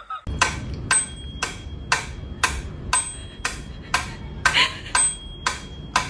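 A steady ticking beat: sharp metallic ticks about two a second, several of them ringing on briefly with a high bell-like tone, over a low continuous hum.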